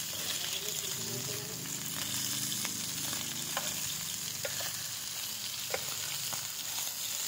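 Pork and chicken wings sizzling on a hot samgyupsal grill pan, a steady frying hiss, with metal tongs clicking and scraping on the pan several times as the meat is turned.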